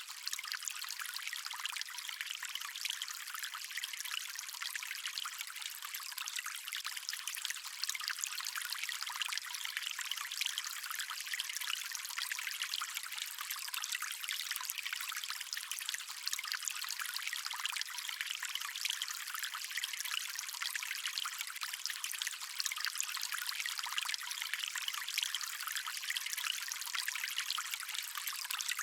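Water stream running and trickling steadily, a thin, hissy splashing with no low rumble.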